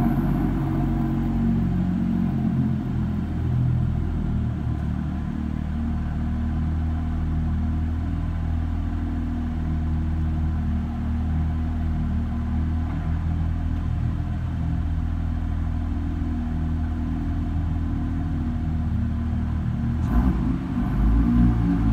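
BMW M2's turbocharged straight-six idling steadily after a cold start, a low exhaust burble that echoes off the concrete of an underground car park. It gets louder near the end.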